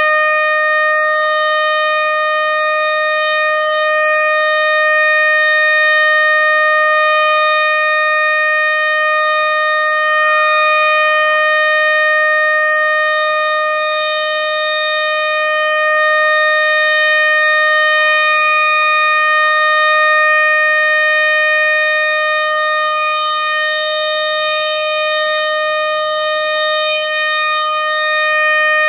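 Civil-defence siren sounding one long, steady tone that does not rise or fall: the W-Hour alarm sounded across Poland to commemorate the Warsaw Uprising.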